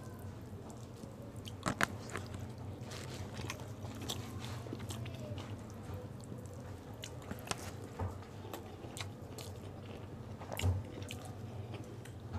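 Fingers mixing and pinching chicken biryani rice on a tray, close to the microphone: scattered small clicks, squishes and scrapes, over a steady low hum.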